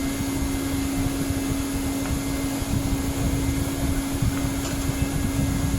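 Hot-air welding machine's blower running steadily with a constant low hum, the heater on and warming up towards the set temperature.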